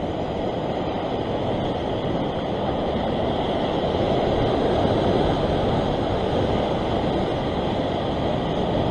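Ocean surf surging and breaking over rock ledges: a steady rushing wash that swells a little midway.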